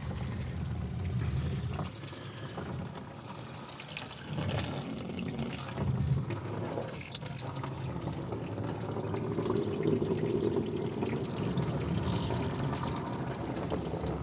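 Water pouring steadily over a truck's door, swelling and easing now and then, as a leak test of a newly fitted door seal.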